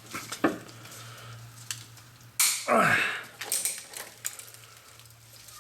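Pliers working at a steel parking brake cable to cut it: sharp clicks and metal crunches as the jaws bite, with one loud grinding scrape about halfway through. A steady low hum runs underneath.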